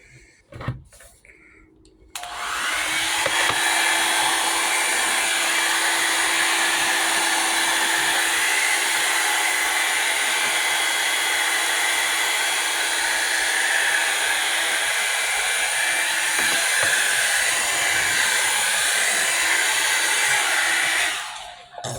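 Revlon Volumizer Plus hot-air brush dryer switched on about two seconds in, blowing steadily with a low hum under the rush of air, then switched off just before the end.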